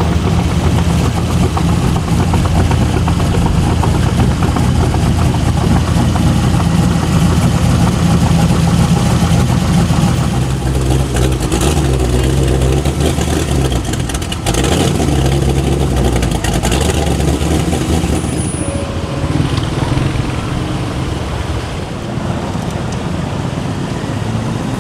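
Several V8 cars, among them a Ford Mustang GT's 5.0 V8, rumbling past one after another at low speed. The exhaust rumble is loudest for the first ten seconds or so, changes around the middle as the next car comes by, and eases off after about eighteen seconds.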